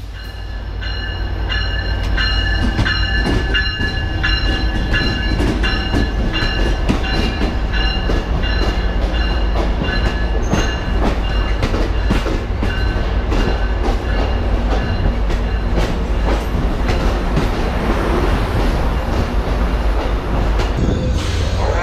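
Passenger train pulling into a station platform, the locomotive and then the bilevel cars rolling past close by. It grows louder over the first couple of seconds, then holds a steady heavy rumble with wheels clicking over the rail joints. Thin high squealing tones in the first half fade out.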